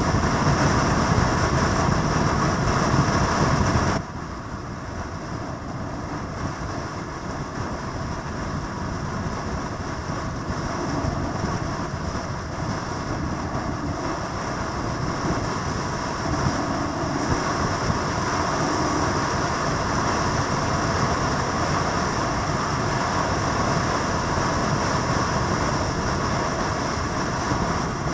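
Steady vehicle noise that drops suddenly about four seconds in and then slowly builds up again.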